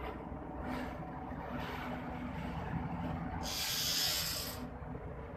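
Steady low rumble of running machinery, with a loud hiss lasting about a second, about three and a half seconds in.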